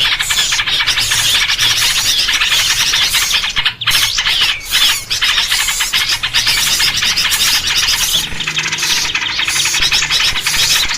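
Bird-lure (pikat) recording of many small birds chirping and chattering at once: a dense, noisy, continuous high-pitched chorus played to draw small birds in. The chorus dips briefly about four seconds in.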